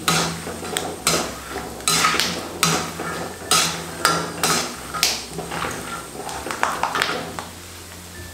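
Perforated steel slotted spoon scraping and clattering against an aluminium kadhai as peanuts are stirred in hot frying oil. There is a stroke about once a second at first; they thin out after about five seconds and go quiet near the end.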